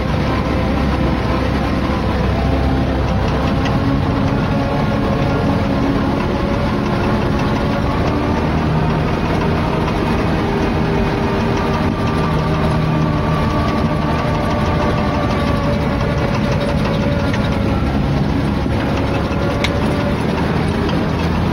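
John Deere tractor's diesel engine running steadily while pulling a loaded trailer of oil palm fruit bunches, heard from on the tractor. Its note rises and falls slightly as it works along the rough track.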